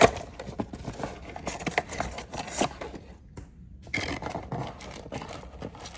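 A trading-card mega box being opened by hand: scraping, scratching and tearing of its wrapping and cardboard, with a sharp click at the start. The sound cuts out briefly a little past halfway.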